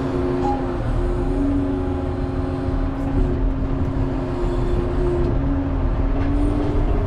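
Cat 140 motor grader's diesel engine running steadily, heard from inside the cab: a constant low rumble with a steady two-pitched hum over it.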